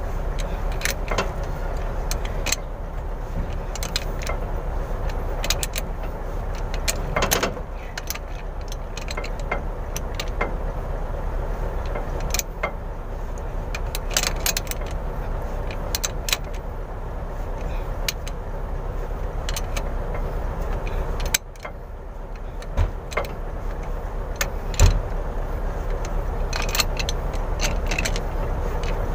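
Scattered metallic clicks and clinks of a pipe wrench being worked on a truck differential's pinion flange nut, with a few sharper knocks, over a steady background hum.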